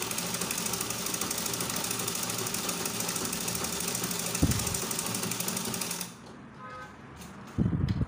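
Black domestic sewing machine on a treadle stand stitching a double-folded seam in cotton print fabric at a steady fast rate, stopping about six seconds in. There is a dull thump near the middle and another just before the end.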